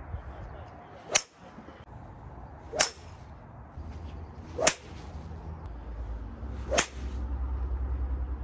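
Golf club swung hard four times, each a quick sharp swish about two seconds apart.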